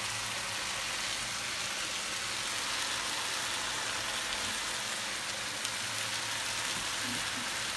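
Chopped sarmaşık shoots sizzling steadily in oil in a frying pan, with a faint low hum underneath.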